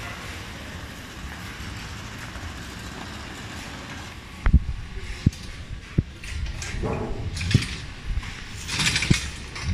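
Automatic fabric spreading machine running with a steady mechanical hum while laying denim. From about four and a half seconds in, several sharp knocks and clacks come over it, with a brief hissing rustle near the end.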